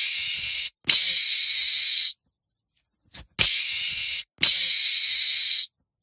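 Meerkat giving hissing calls, each about a second long, in two pairs: the second pair begins about three and a half seconds in. Each call starts and stops sharply.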